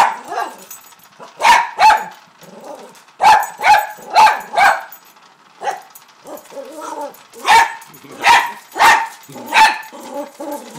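A toy fox terrier barking sharply at a Hexbug Nano vibrating robot toy: about a dozen short, high-pitched barks in irregular clusters, with quieter, lower sounds between them.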